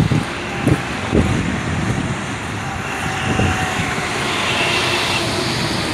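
Motor vehicle noise, a broad rushing sound that swells to its loudest about five seconds in, with a few short thumps in the first second and a half.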